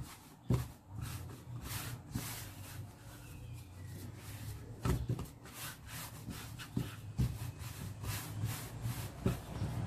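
Hands rolling and kneading soft yeast dough on a silicone pastry mat: soft rubbing and pressing, with several dull thumps against the table.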